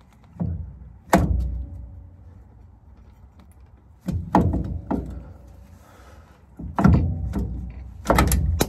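Metal parts of a Daimler Ferret's epicyclic reduction hub clunking and knocking as the hub is worked off its shaft by hand. There are several clunks, the loudest about a second in, and some leave a short metallic ring.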